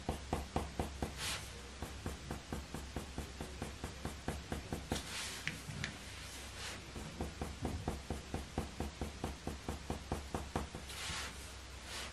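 Faber-Castell Polychromos coloured pencil scratching quick, short fur strokes on hot-press watercolour paper, about five strokes a second, with a few brief pauses and soft swishes of the hand across the paper.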